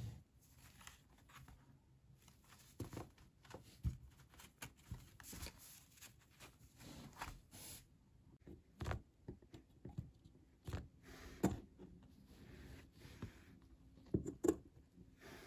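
Folded sheets of heavy cotton printmaking paper handled by hand: irregular rustles and soft taps as the stack is shifted, squared up and set down, with a few louder knocks in the second half.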